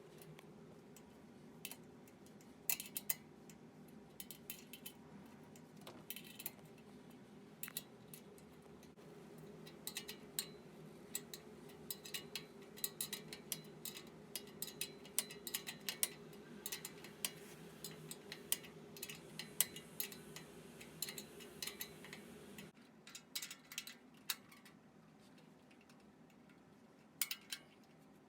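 A half-inch wrench working the muffler mounting nuts loose, giving irregular metallic clicks and clinks, some in quick runs. A low steady hum underneath stops about three quarters of the way through.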